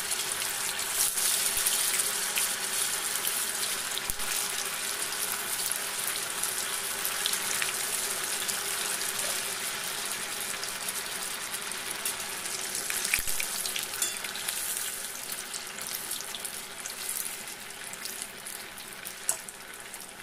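Steamed wheat-dough batti pieces deep-frying in hot oil in a steel kadhai: a steady, hissing sizzle with fine crackling that slowly dies down as the moisture cooks out. A short knock near the end.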